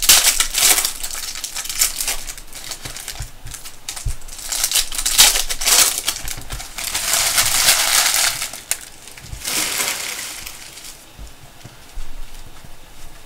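Foil wrappers of Prizm basketball card packs crinkling and crumpling in several separate bursts as they are opened, with quieter handling in between.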